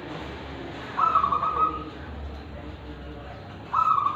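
Caged zebra dove (perkutut) cooing: a quick run of rapidly repeated, clear notes about a second in, and a second run starting near the end.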